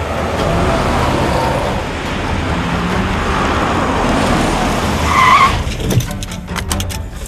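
A car driving up fast and braking hard to a stop, its tyres skidding, with a short squeal about five seconds in. A few sharp ticks follow near the end.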